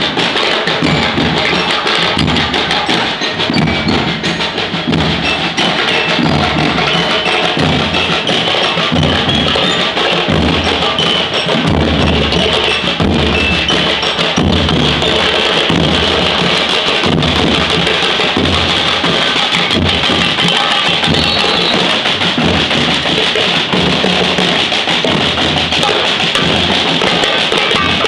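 School marching percussion band playing: bass drums, snare drums and cymbals beating out a loud, steady marching rhythm.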